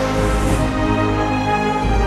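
Theme music with sustained held chords, and a brief high shimmer about half a second in.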